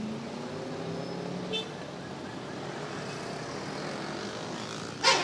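Road traffic with buses passing, engines running steadily. A sudden loud, noisy blast comes near the end.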